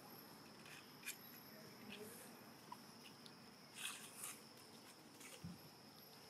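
Near silence: a faint, steady, high-pitched drone of insects, with a few soft clicks and rustles scattered through.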